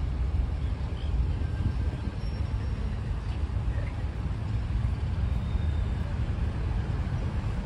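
City street ambience: a steady low rumble of road traffic, with faint voices of passers-by.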